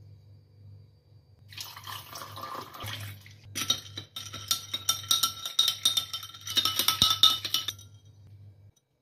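Fizzy liquid poured over ice cubes in a drinking glass, then a metal spoon stirring, clinking rapidly and repeatedly against the glass and the ice for about four seconds before stopping.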